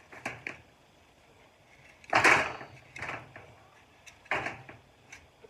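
Soil and potato plants being dug through in a raised garden bed: a handful of short rustling scrapes, the loudest about two seconds in.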